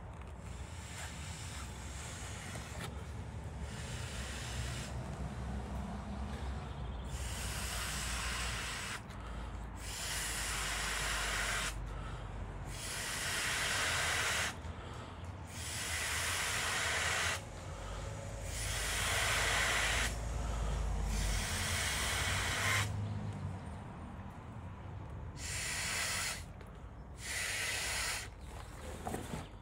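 A person blowing by mouth into the air valve of a Bestway Fast Set pool's inflatable top ring, inflating it. It comes as about a dozen long, rushing exhalations of roughly two seconds each, with short pauses between them to draw breath.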